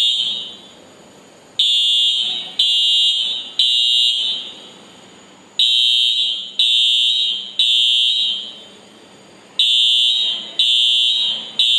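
Industrial fire alarm sounder going off, set off by a small trace of smoke at the sensor. It gives loud, high-pitched electronic tones in groups of three, with a new group starting about every four seconds.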